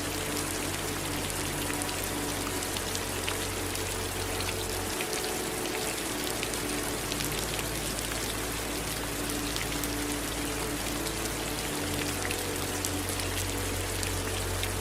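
Steady rain falling, with a constant even hiss and many separate drops pattering sharply through it.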